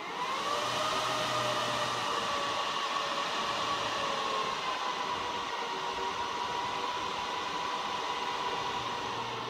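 Dell PowerEdge R710 rack server's cooling fans spinning up at power-on and running at full start-up speed, a steady whirring rush with a high whine that eases slightly lower in pitch over several seconds.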